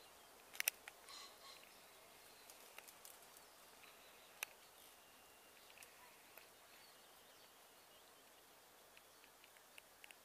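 Quiet open-air ambience: a faint steady hiss with scattered faint bird chirps. A couple of sharp clicks come about half a second in and another a little before halfway.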